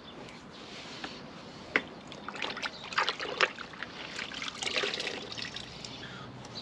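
A damp microfiber cloth wiping detergent out of car seat-belt webbing: wet rubbing with irregular scratchy strokes, busiest in the middle.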